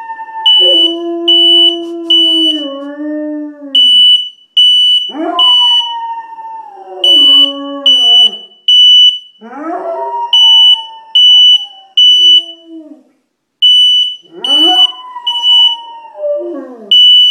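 A smoke alarm beeping in repeating groups of three, the temporal-three fire-alarm pattern, with a dog howling along over it. The dog gives four long howls, each sliding down in pitch.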